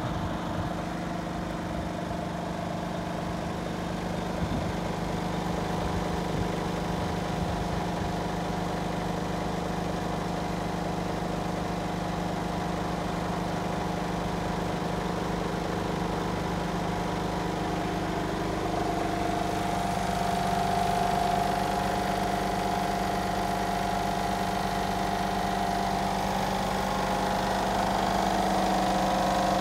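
Mercedes Actros 2543 truck's 12.8-litre straight-six diesel idling steadily, its hum shifting slightly in pitch about two-thirds of the way through.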